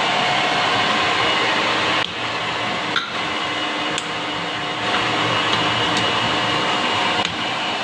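Baoji 660 x 2000 metal lathe running with a steady mechanical hum. The level drops and rises a few times, and there are a few sharp clicks.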